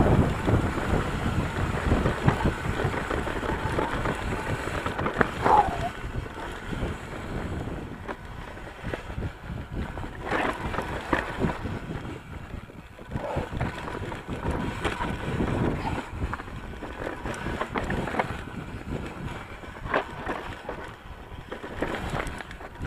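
Ibis Mojo HD3 full-suspension mountain bike riding over dirt and rocky singletrack: wind rumbling on the camera's microphone, tyres crunching over the trail, and many small knocks and rattles from the bike over bumps, louder in the first few seconds.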